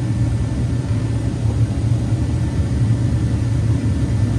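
A steady low mechanical rumble at an even level, with no distinct knocks or clicks.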